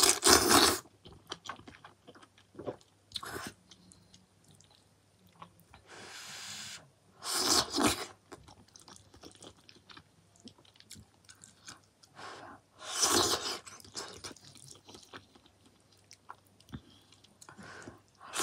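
Kimchi instant noodles in broth being slurped off chopsticks in several noisy bursts, the biggest at the start, about seven and a half seconds in and about thirteen seconds in. Wet chewing and small mouth clicks fill the gaps.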